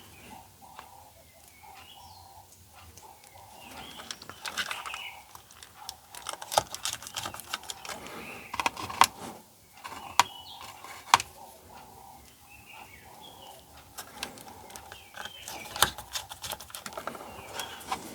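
Small clicks and taps of hands handling the plastic parts of a blood pressure monitor while fixing a part in place with press stick, with a few faint bird chirps in the background.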